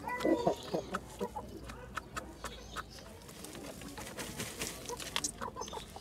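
Hen giving a short cluck at the start, then a string of sharp taps and scratching as she pecks and scratches at an egg in her dusty nest.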